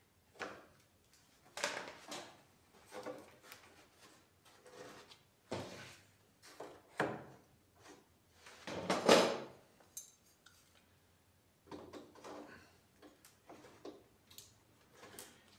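Scattered clicks, knocks and scrapes of a clamp and a small wooden block being handled and fitted onto a foam cockpit-rim mold, with a louder, longer scrape about nine seconds in.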